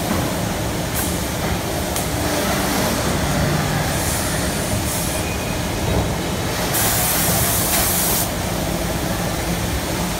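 Automatic multi-spindle drilling machine for wooden chair frames running: electric motors hum steadily while it works, with short hisses of air from its pneumatic cylinders and one longer hiss of about a second and a half some seven seconds in.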